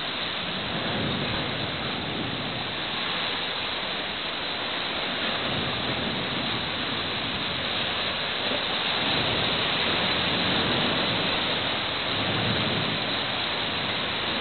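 Steady rushing noise on the side deck of a freighter under way: wind and the sea's wash along the hull.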